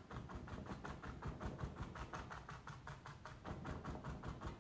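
A paint-loaded sponge pounced over and over onto a canvas: soft, rapid, even dabbing taps, about six a second.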